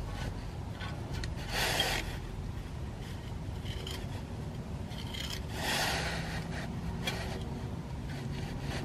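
An applicator spreading JB Weld steel epoxy over window screen wrapped on an exhaust pipe makes scraping strokes. There are two louder scrapes, about a second and a half and five and a half seconds in, with fainter scratches between.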